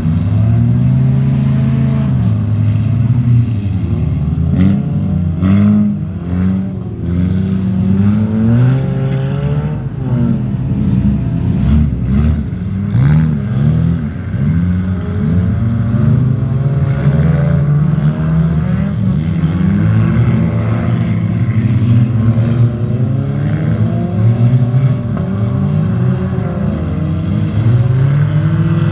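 Several front-wheel-drive ice-racing cars' engines revving up and down through their gears as they race around the ice track, one engine note overlapping another.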